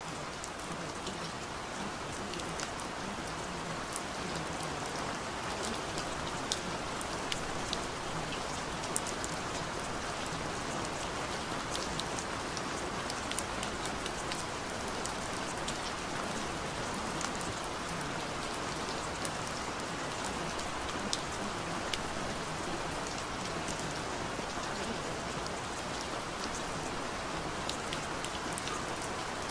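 Steady rain falling, an even hiss scattered with sharp ticks of single drops.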